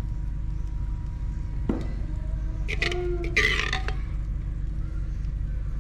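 Metal ladle scraping and knocking against a glazed clay bowl as gravy is spooned over fish curry, with a click a little under two seconds in and a harsh, grating scrape around three seconds in, over a steady low rumble.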